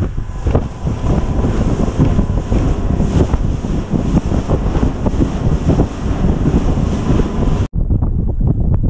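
Fishing boat running at speed across choppy water: heavy wind buffeting the microphone over the rush of spray and waves slapping the hull. Near the end it cuts abruptly to gusting wind on the microphone alone.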